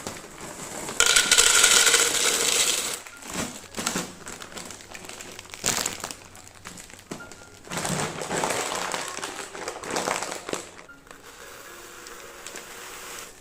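Rustling and crinkling with small clicks and clinks, as of plastic packaging and containers being handled, loudest in two stretches: one about a second in and one about eight seconds in.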